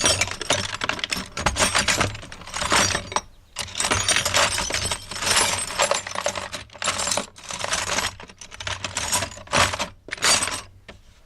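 Loose metal tools and bits clattering and jangling as a hand rummages through them, in irregular bursts with short pauses, dying away near the end.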